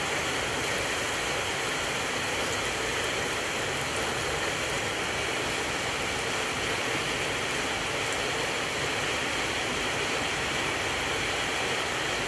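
Flour-coated potato fritters deep-frying in hot oil, a steady sizzle with a few faint pops.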